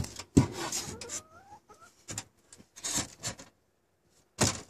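A wooden shelf being worked into place by hand: irregular wood-on-wood rubbing and scraping, with a sharp knock about half a second in and one more scrape near the end.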